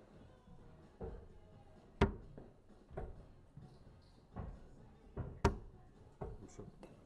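Steel-tip darts striking a Winmau Blade 6 bristle dartboard: a run of short thuds about a second apart, two of them sharper and louder than the others.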